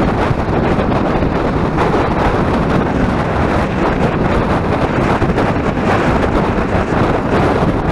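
Steady wind noise buffeting the microphone of a camera mounted on a motorcycle being ridden at speed, with the motorcycle's running blended into the rush.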